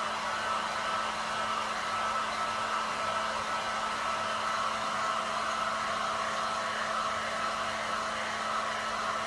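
Steady blowing noise from a small appliance motor, with a constant low hum and a faint whine.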